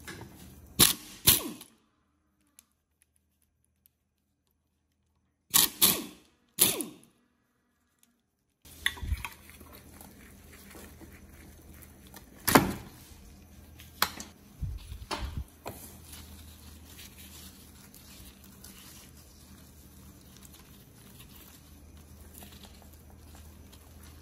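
Sharp metal knocks and clicks from hand tools working on a 1970 Honda PAL moped engine's magneto and crankcase: two knocks about a second in, a few more about six seconds in, then scattered clicks over faint room tone.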